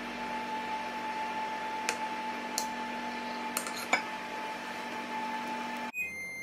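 Metal cutlery clinking a few times against a ceramic plate while cutting through a dense chocolate cake, over a steady electrical hum.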